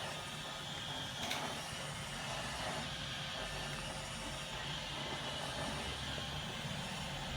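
Roomba robot vacuum running: a steady whirring hum with a hiss, and a single light click about a second in.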